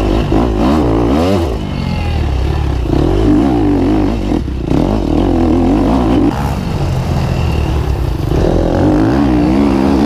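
Four-stroke dirt bike engine under way on a rough trail, the throttle opening and closing so the engine note keeps rising and falling.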